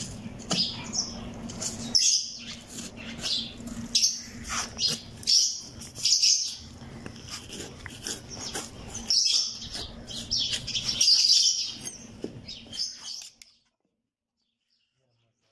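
Small birds chirping over and over, with a faint steady hum beneath; the sound cuts off abruptly about two seconds before the end.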